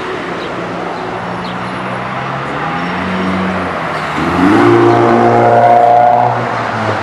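A motor vehicle's engine running in street traffic, its pitch rising as it accelerates about four seconds in and loudest for the two seconds after, over the hiss of passing traffic.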